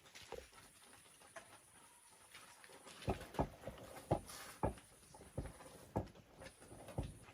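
A series of about eight dull knocks, irregularly spaced, starting about three seconds in.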